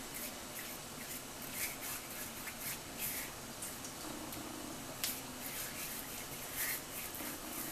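Pastry brush swishing and scraping in short, irregular strokes as it spreads a thin batter across a stainless steel skillet, over a steady faint hiss.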